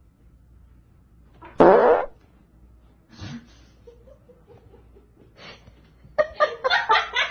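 A dog breaking wind: one loud fart, about half a second long, a little over a second and a half in. Near the end a rapid run of short sounds begins.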